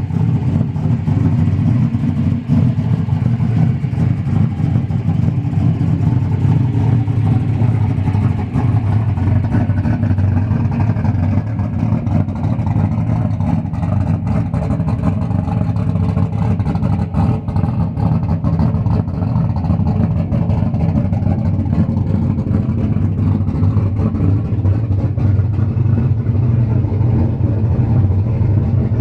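Big turbocharged V8 in a classic Chevrolet Nova running at a loud, steady idle.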